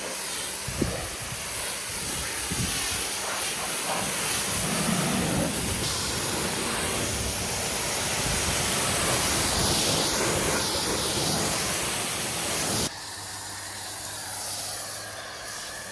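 Water spraying onto a car during its wash: a steady hiss that drops suddenly to a quieter spray about 13 seconds in.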